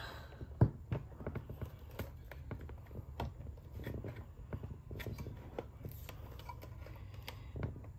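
A screwdriver clicking and tapping against the hard plastic cassette door of a Cricket doll while prying its clips into place: irregular small clicks, with one louder click under a second in.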